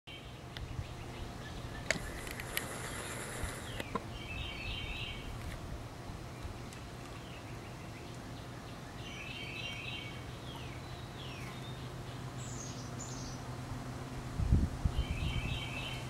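Wild songbirds singing outdoors: one bird repeats the same short phrase three times, about every five seconds, with scattered higher chirps in between, over a steady low background hum. A few low thumps come near the end.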